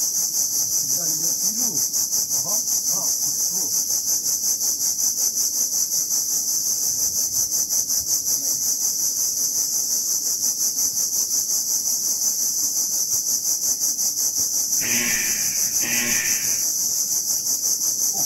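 Loud, steady cicada chorus: a high, shrill buzz pulsing several times a second. About fifteen seconds in, two short, harsh calls of about a second each sound over it.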